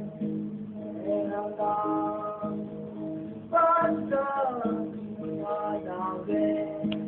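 A boy singing a Dhivehi pop song over a plucked and strummed guitar accompaniment, his voice strongest about halfway through.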